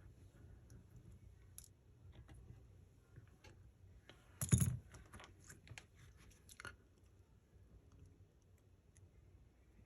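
Faint, scattered clicks and taps of small repair tools on an opened phone, with one louder knock about four and a half seconds in.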